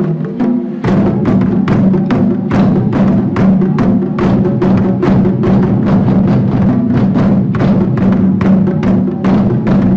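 Taiko drums struck in a steady beat along with a recorded backing song, the drumming growing louder and fuller about a second in.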